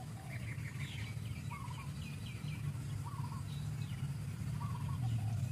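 Outdoor ambience: small birds chirping, with a short warbling call repeated about every one and a half seconds, over a steady low hum.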